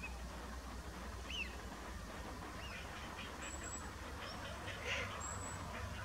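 Calls of wild waterbirds: a few short sweeping chirps in the first half, then a run of quick repeated calls from about three to five seconds in, over a low steady rumble.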